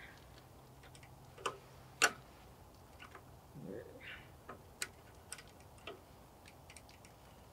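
Scattered light clicks and taps of metal parts being handled and fitted on a snowblower carburetor, with two sharper clicks about a second and a half and two seconds in, then a few fainter ticks.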